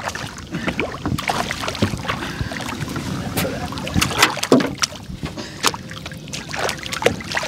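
A hooked yellow perch splashing and thrashing at the surface beside a small boat as it is reeled in and netted: a string of short, sharp splashes and knocks.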